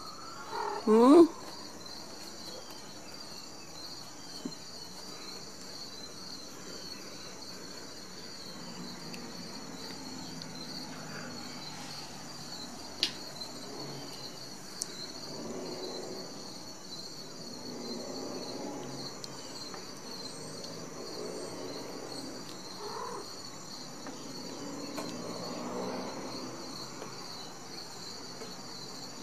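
A Ragdoll kitten gives one short meow about a second in, over a steady, high-pitched, pulsing chirr like insects that runs throughout.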